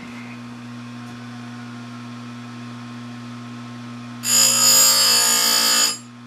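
Electric bench chainsaw-chain grinder running with a steady motor hum. About four seconds in, the spinning wheel is lowered onto a chain cutter tooth and grinds it loudly and shrilly for about a second and a half, then lifts off back to the hum. This is a light sharpening pass, taking a little off each tooth at a time.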